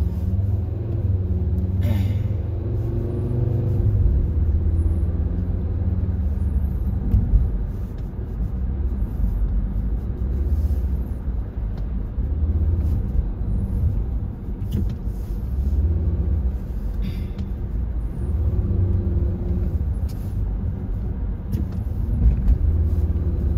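Car driving, heard from inside the cabin: a steady low rumble of engine and road noise that swells and eases, with a few brief knocks.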